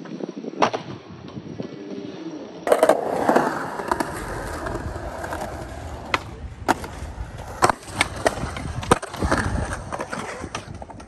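Skateboard wheels rolling on concrete, broken by sharp clacks of the board popping and landing. The sound changes abruptly about three seconds in, then the rolling continues with a string of clacks.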